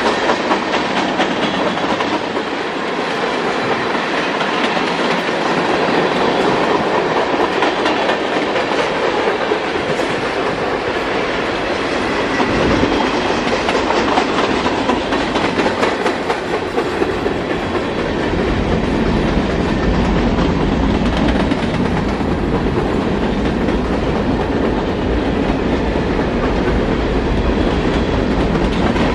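Cars of a mixed-freight (manifest) train rolling past: a steady rumble and rattle of steel wheels with clickety-clack over the rail joints. A deeper low rumble joins past the middle.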